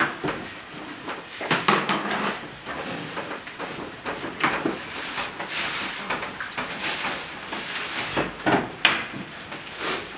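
Irregular knocks, clicks and clatter of hands and utensils at work in food preparation, with several sharper knocks standing out.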